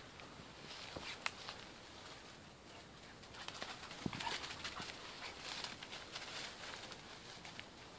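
Dry leaves and undergrowth rustling and crackling as a young springer spaniel hunts through them, with a few sharp twig snaps. The rustling is busiest in the middle, as the dog passes close by.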